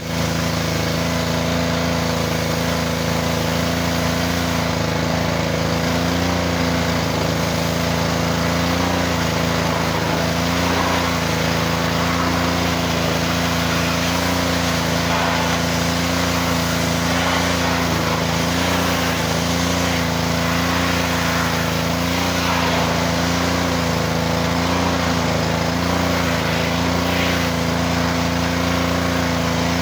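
Pressure washer's small engine running steadily, its note wobbling slowly and regularly, over a steady hiss.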